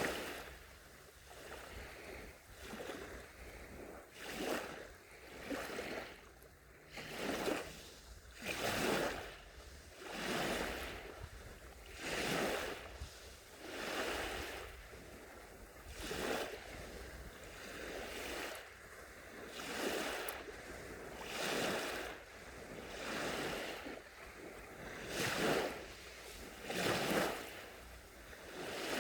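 Gentle sea waves breaking and washing up a beach, each wash swelling and fading, one about every two seconds.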